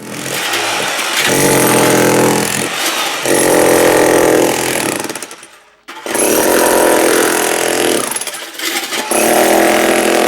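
Electric jackhammer breaking a concrete slab over a buried water pipe. It runs in two long bursts with a short pause about six seconds in.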